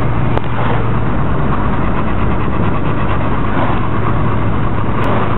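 Steady engine and road noise inside a car's cabin while it is driven at road speed, an even drone with a low hum underneath.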